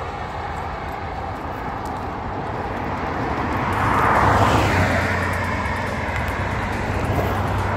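Road traffic: a car passes, its tyre and engine noise swelling to a peak about four seconds in, then fading, with another car starting to build near the end.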